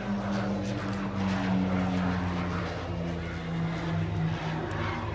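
OV-10 Bronco's twin turboprop engines and propellers droning in flight, a steady hum whose pitch sinks slowly.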